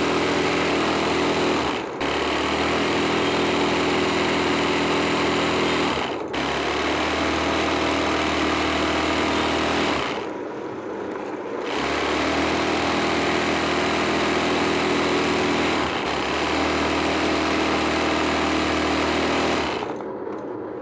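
Sewing machine running at a steady high speed while stitching free-motion embroidery in a hoop. It breaks off briefly about 2 and 6 seconds in, pauses for over a second near the middle, and stops again near the end.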